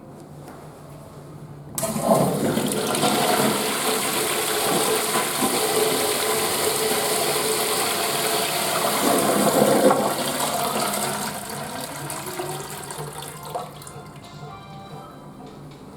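Western-style flush toilet flushing. The rush of water starts suddenly about two seconds in, runs loud for about eight seconds, then fades away over the next few seconds.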